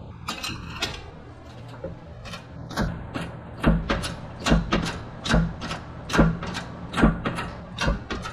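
A shop press being worked in steady strokes to press the input shaft into a 4L60E input drum. A short clunk comes about every 0.8 s from about three seconds in, over a steady low hum.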